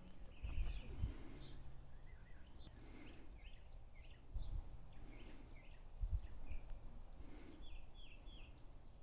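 Small birds chirping outdoors in short, repeated high notes, with a quick run of three near the end. A few dull low thumps stand out louder, about half a second, one, four and a half and six seconds in.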